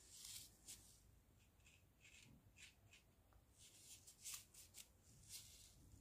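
Faint, short scratchy swishes of a damp watercolour brush stroking over cold-pressed cotton watercolour paper, a dozen or so strokes, softening the edges of a wet wash.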